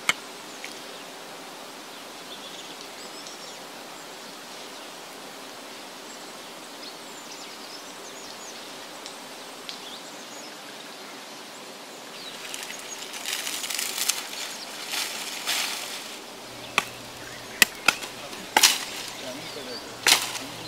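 Quiet outdoor background with a few faint bird calls. From about two-thirds of the way through, dry coconut palm fronds rustle and crackle. Near the end come several sharp cracks as the dried fronds and their stems are snapped and beaten with a stick.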